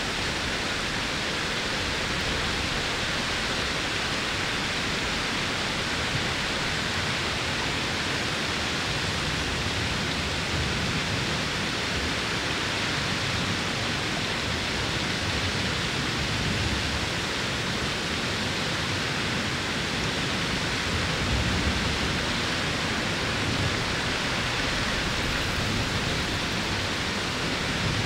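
Single-drop waterfall plunging down a basalt cliff into a pool: a steady, even rush of falling water, with a few slight low swells.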